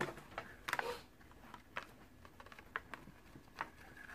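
Faint rustling and light clicks of a paper checklist and a small cardboard toy box being handled on a tabletop, with a brief cluster of louder clicks a little under a second in.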